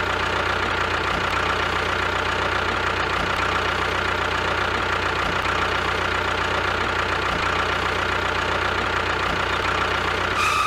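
Tractor engine idling steadily with an even, unchanging beat.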